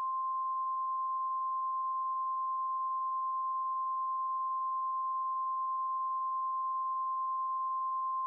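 NOAA Weather Radio 1050 Hz warning alarm tone: a single steady, unbroken beep that signals a newly issued warning is about to be read.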